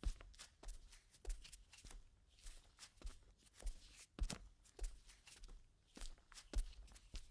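Barefoot footsteps on concrete, walking at a steady pace: about one and a half to two soft slapping steps a second, each with a low thud and a lighter scuff between.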